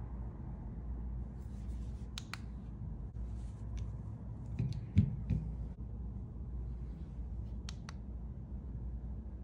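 Small plastic clicks and taps from handling a power bank and its charging station, with one louder knock about five seconds in, over a steady low background hum.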